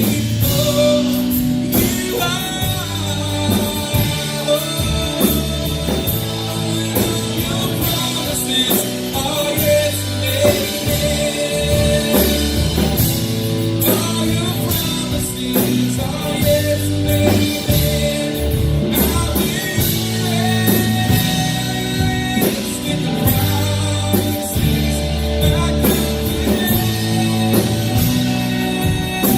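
Live worship band playing with electric guitar, bass and drum kit, with singing over it.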